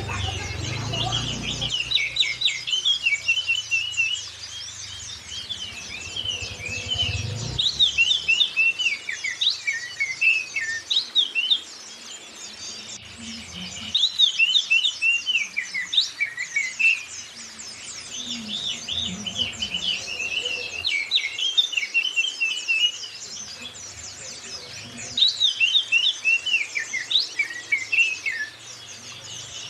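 Songbird song made of fast twittering chirps and whistles, repeated in bursts of a few seconds separated by short gaps.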